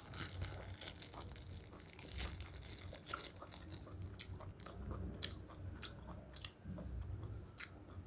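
A person chewing a mouthful of raw green vegetables close to the microphone: a run of short, wet crunches and mouth smacks.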